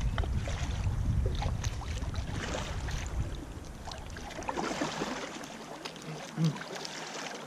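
Canoe paddles dipping and water splashing and lapping on a river, many small irregular splashes, with low wind rumble on the microphone that dies away about halfway through.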